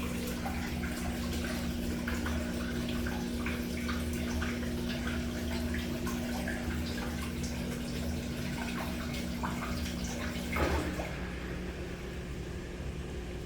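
Washing machine draining its water: a steady drain-pump hum over water running and trickling out. The hum cuts off about ten and a half seconds in.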